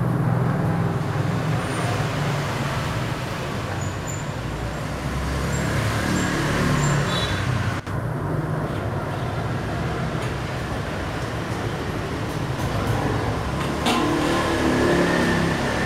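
Steady road traffic noise, cars and other vehicles passing, with a brief dropout about eight seconds in.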